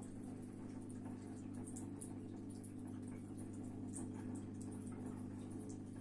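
Water dripping and trickling as it drains from a washing machine, with faint irregular drips over a steady low hum.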